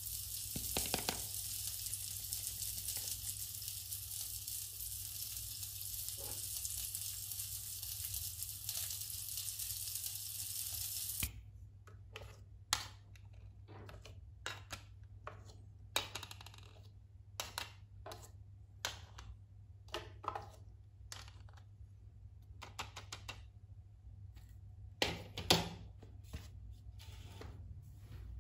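Toy barbecue grill's sizzle sound, a steady high hiss that cuts off suddenly about eleven seconds in. It is followed by scattered clicks and clacks of small plastic toy pieces and trays being picked up and set down, the loudest two close together near the end.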